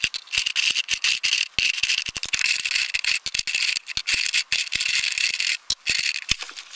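Plastic art markers clattering and rattling against one another as a hand rummages through a batch of them, a fast uneven run of small clicks that stops shortly before the end.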